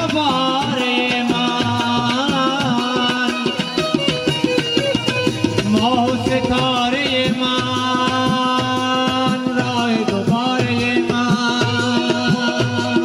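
Balochi folk music: a bending melody on a benju, the Baloch keyed zither, over a steady hand-drum beat and a long held low note.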